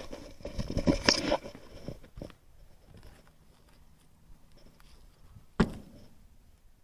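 A magnet-fishing find being handled: a quick series of clicks and knocks, then a quieter stretch and a single sharp knock near the end. The part being worked is seized up.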